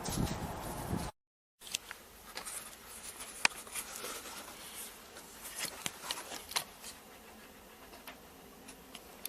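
Wind buffeting the microphone with a low rumble for about a second, cut off abruptly. Then faint, scattered clicks and light rustles.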